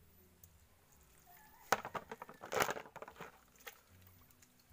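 Hands digging through wet mud for clams: a run of squelches, scrapes and sharp clicks, starting a little before halfway and lasting about two seconds.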